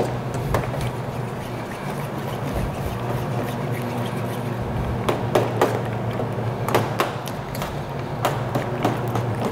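A utensil stirring an egg, cream and bacon mixture in a stainless steel bowl, with irregular clicks and taps against the metal, several coming close together in the second half, over a steady low hum.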